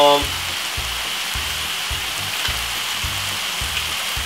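Minced beef and vegetables sizzling steadily in a hot frying pan.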